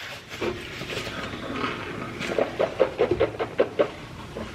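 A man's voice making a quick run of short, clipped pitched sounds, about five a second, through the second half, without words.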